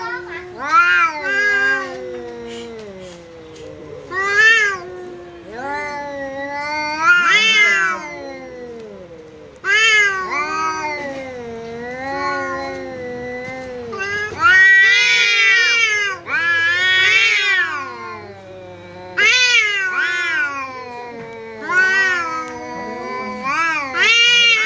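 Domestic cats yowling at each other in a face-off: a low, wavering drawn-out yowl runs throughout, broken every two or three seconds by louder wails that rise and fall in pitch. It is the territorial threat call of a resident cat standing its ground against a visiting cat.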